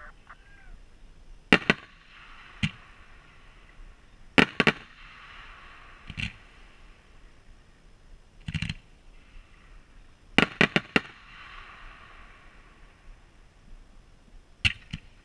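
Aerial fireworks going off: sharp reports every second or two, twice in quick clusters of three or four, with a fizzing hiss after the bigger clusters.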